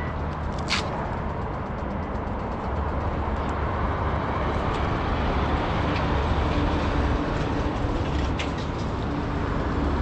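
An engine runs steadily with a low rumble, and a few sharp knocks come through, one about a second in and one near the end.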